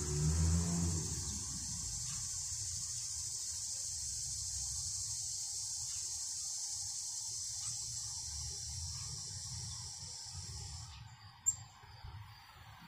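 Steady high-pitched trilling of an insect chorus that cuts off suddenly about eleven seconds in. A low vehicle rumble fades out in the first second or so, and a single sharp click comes shortly after the chorus stops.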